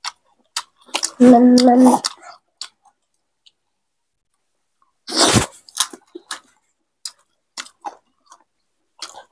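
People eating rice and curry with their hands, with soft wet chewing smacks and clicks. A brief steady voiced sound comes about a second in, and a single loud sudden burst about five seconds in.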